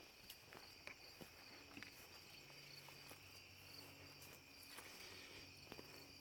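Near silence: faint outdoor ambience with a steady high-pitched tone, a faint low hum joining about two seconds in, and a few light ticks.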